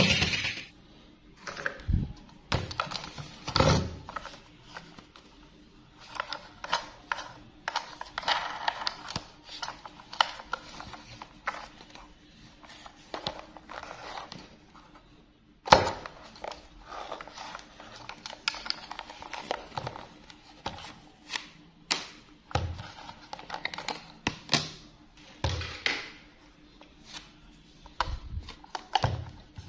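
Plastic battery-operated Thomas toy train handled by gloved hands: irregular plastic clicks, taps and rattles as its battery compartment is opened and AA batteries are fitted, with one sharp click about halfway through.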